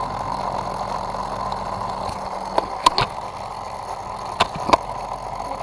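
Handling noise from a webcam being moved among plastic toy car track pieces: a few short sharp clicks and knocks, four in all, in the middle of the stretch, over a steady hiss.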